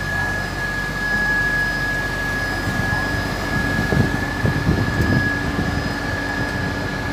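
Three coupled X 76500 diesel multiple units standing at the platform with engines and cooling fans running: a steady low hum under a high, steady whine. About four seconds in, a short spell of louder rumbling.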